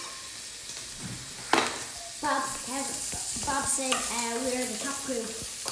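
Bacon lardons with freshly added onion and garlic sizzling in their own fat in a frying pan, with a utensil stirring through them and one knock about a second and a half in. A voice talks in the background from about two seconds in.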